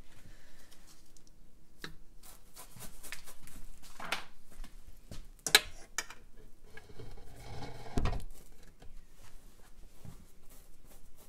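Paintbrush strokes rubbing and scratching on a stretched canvas in short irregular strokes, with a sharp click about five and a half seconds in and a dull thump near eight seconds.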